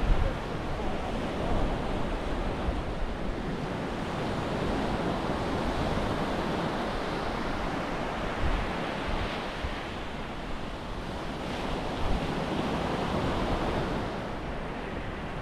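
Ocean surf breaking and washing up a sandy beach in a steady rush, with wind buffeting the microphone in low gusts.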